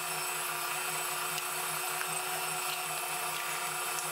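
Electric stand mixer running steadily, its beater turning through thick cheesecake batter in a stainless steel bowl: a constant motor whine over a low hum that pulses at an even rate.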